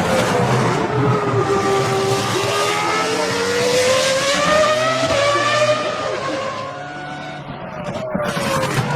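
Ferrari F2004 Formula 1 car's 3.0-litre V10 running at high revs. Its pitch sags, then climbs steadily for several seconds, drops and quietens about seven seconds in, and picks up again near the end.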